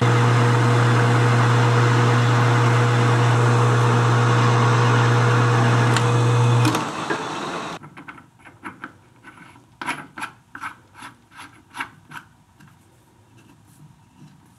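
Metal lathe running at speed with a steady low hum and hiss while machining a threaded steel exhaust-port piece, stopping abruptly about two-thirds of the way through. It is followed by light metallic clicks and scrapes as a threaded ring is worked onto the fresh thread by hand.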